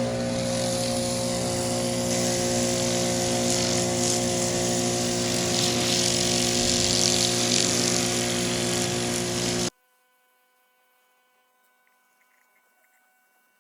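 Pressure washer running and spraying water, a steady motor hum under a loud hiss of spray, which cuts off suddenly about ten seconds in.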